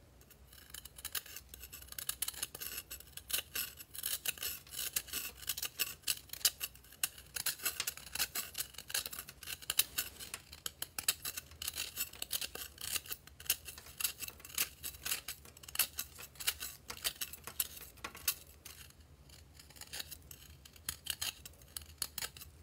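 A dry, crumbly green ball being scraped and shaved with the edge of a tool. It makes a dense run of fine crunching and scratching that thins out near the end.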